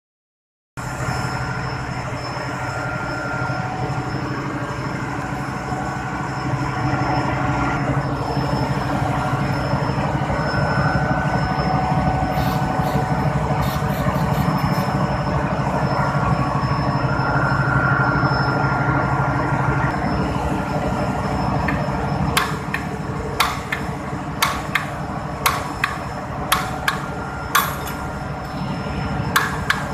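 Steady machinery hum, with a few short hisses of aerosol penetrating oil about halfway through. In the last eight seconds, about a dozen sharp metallic hammer blows land roughly once a second on the screw of a puller, driving it to free a pulley hub from a pump shaft.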